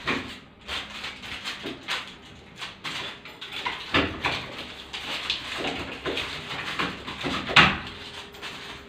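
Irregular clicks, knocks and rattles of a metal lever-handle lockset as its outer half is pushed and seated into the door, with a sharper knock near the end.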